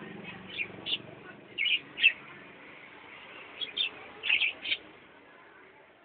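Caged budgerigars chirping: short, sharp, high chirps in small clusters, with a pause of about a second and a half in the middle.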